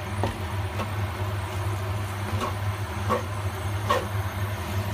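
Fried rice sizzling in a nonstick pan on an induction hob over a steady low hum. A wooden spatula scrapes and knocks against the pan about five times.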